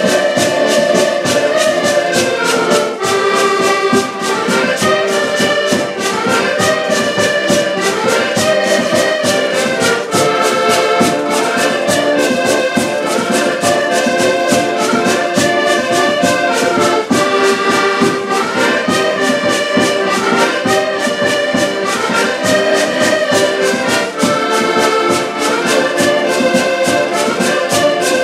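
A group of diatonic button accordions (Portuguese concertinas) playing a traditional tune together in repeating phrases over a steady beat.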